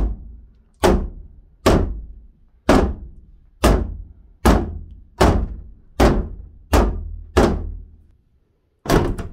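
Loud hammer blows on a wooden wall stud, about a dozen at roughly one a second with a short pause near the end, each a hard thunk with a brief ring. The stud is being knocked loose to open a doorway in the framed wall.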